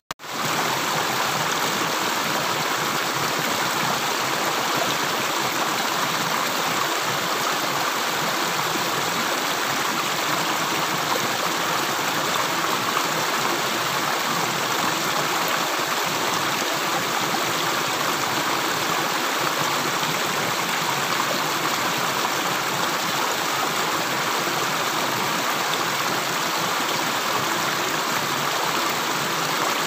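Steady rush of flowing water, like a stream, with no separate drips. It cuts out for a split second at the very start, then resumes.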